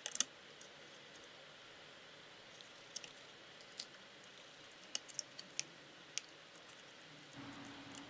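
Faint, scattered small clicks and taps of fingers working a laptop-size memory module (SO-DIMM) and its retaining clips in a Mac mini's memory slot: a quick cluster at the start, then single clicks a few seconds later.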